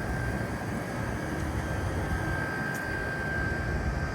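Steady low outdoor rumble with a faint, steady high-pitched tone running through it.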